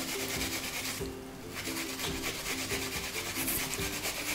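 Onion being grated on a flat plastic grater: quick repeated rasping strokes, with a short pause about a second in. Soft background music plays underneath.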